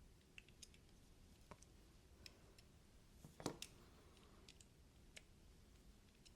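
Faint, scattered small metallic clicks of a screwdriver bit and knife hardware being worked as the folding knife's body screws are driven in, with a slightly louder pair of clicks about three and a half seconds in.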